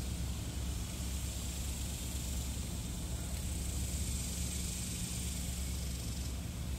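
Steady outdoor background: an even high hiss over a low hum, with no distinct event.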